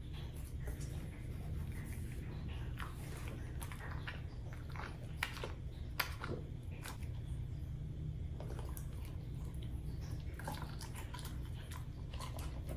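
A husky chewing and crunching a snack, with irregular crisp crunches and bites, the two sharpest about five and six seconds in.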